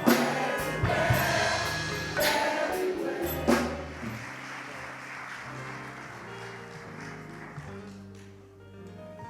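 Gospel choir and church band finishing a song, with a last drum hit about three and a half seconds in. A keyboard then holds soft chords as the sound fades.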